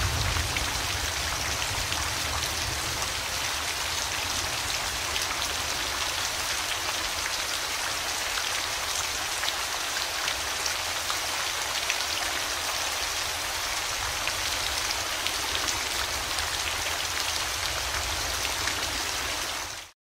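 Steady rain falling, a dense hiss of drops with fine ticks. A low rumble of thunder dies away over the first few seconds. The rain cuts off suddenly just before the end.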